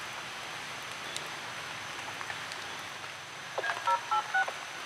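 Steady background hiss, with a quick run of four or five short electronic two-tone beeps at different pitches about three and a half seconds in.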